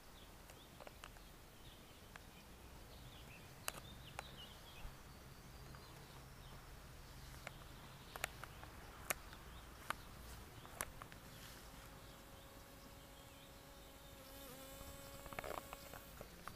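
Faint outdoor quiet with a few sharp clicks. A flying insect buzzes as a steady hum through the second half.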